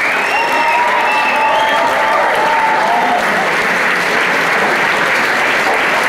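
Large audience applauding steadily, with voices calling out over the clapping during the first three seconds.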